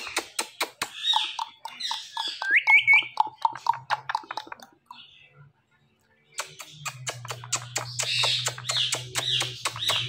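Indian ringneck parakeet squawking and chattering in short, rising calls amid rapid kissing smacks. A quiet gap falls about halfway through, and then a low steady hum comes in under the bird's harsher calls.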